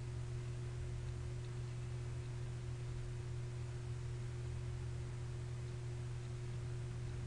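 Steady low electrical hum with a faint, thin higher tone over a light hiss, unchanging throughout.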